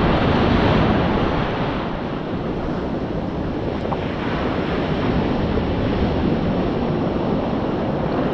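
Ocean surf washing in over the sand in the shallows, a steady rushing of foaming water, a little louder in the first couple of seconds, with wind buffeting the microphone.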